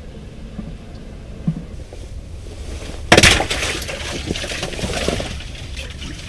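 Ice crunching and cracking: a sudden loud crash about three seconds in, trailing off into a couple of seconds of crackling and clinking.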